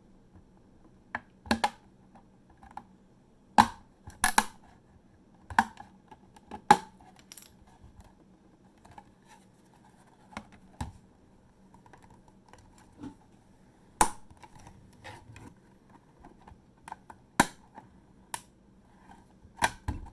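Plastic clips of a WD Elements external hard drive enclosure clicking and snapping as the case seam is pried apart, with sharp clicks at irregular intervals, the loudest bunched in the first seven seconds and again near the end.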